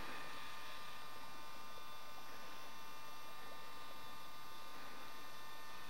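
Steady electrical hum and hiss with several fixed whining tones and no other sound: the recording's own background noise.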